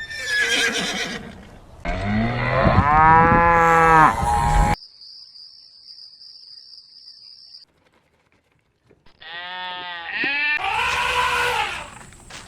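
Farm-animal calls with gaps between them, led by a cow's long, loud moo from about two seconds in. After a pause, a second call starts high and falls in pitch near the end.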